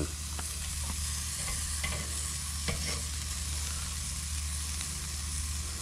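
Beef steak rolls and a steak sizzling over hot charcoal on a kettle grill grate: a steady hiss with a few faint pops, over a steady low hum.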